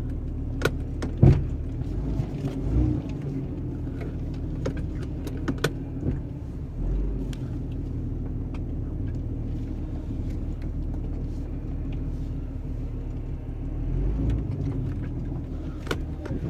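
An old Jeep's engine running steadily at low speed, heard from inside the cab as it crawls over rough off-road ground, with sharp knocks and rattles from the vehicle jolting; the loudest knock comes about a second in, with others scattered through.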